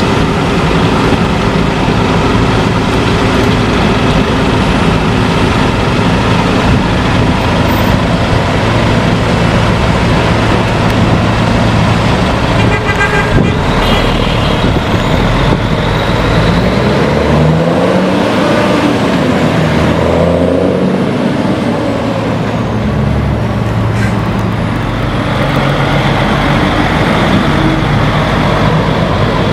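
DAF XF95 530 truck's diesel engine running through a loud aftermarket exhaust. Around the middle it revs up, its note rising as the laden truck pulls away, then it passes close by.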